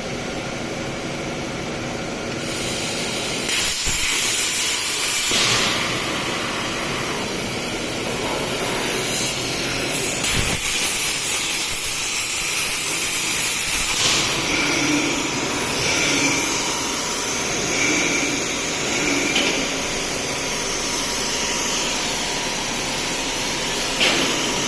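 CNC plasma cutting torch cutting metal plate: a steady, loud hiss, stepping up about two seconds in.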